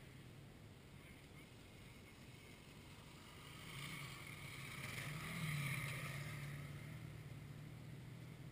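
Dirt bike engine sound swelling and then fading, loudest about five and a half seconds in, as of a motorcycle riding past on the trail, over a low steady engine hum.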